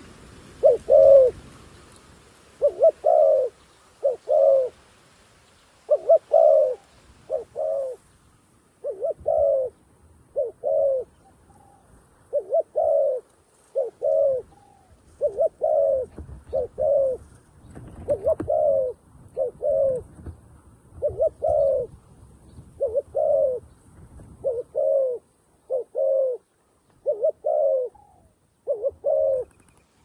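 Spotted dove cooing over and over: short low coos, mostly in pairs, repeated every second or two, a decoy calling wild doves down.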